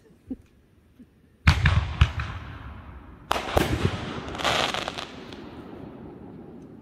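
Aerial fireworks going off: a sharp bang about a second and a half in, another half a second later, then a third burst about three seconds in, each followed by crackling that slowly fades away.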